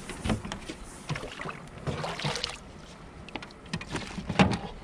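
Scattered knocks and rustling of a fish being handled on a plastic kayak: short taps and thuds on the hull and a plastic measuring board, a rustling patch about two seconds in, and the loudest thud near the end.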